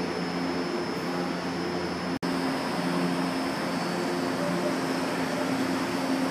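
São Paulo Metro train standing at an underground platform, its ventilation and auxiliary equipment humming steadily with a few held tones and a faint high whine. The sound cuts out for an instant about two seconds in.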